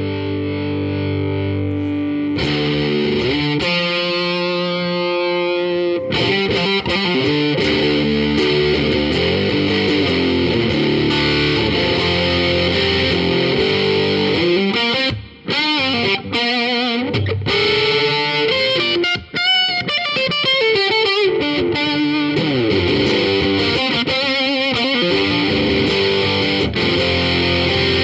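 Electric guitar played with overdrive through a Renzo Sound Autumn Drive pedal. A chord rings for about two seconds, then the guitar plays riffs and lead lines with bent, wavering notes. There are two brief gaps around the middle.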